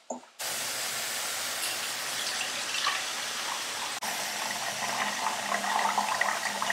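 Cooking water from boiled red cowpeas poured in a steady stream from a steel pan into a steel bowl, splashing into the liquid already pooled there.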